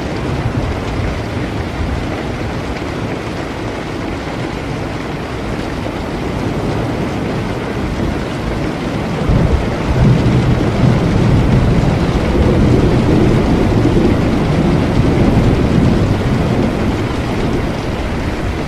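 Steady heavy rain, with a long rolling rumble of thunder that comes in about halfway and eases off near the end.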